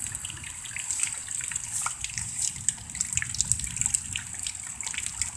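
Light rain falling and dripping after a hailstorm: a steady wash of water noise with many small, irregular drop ticks.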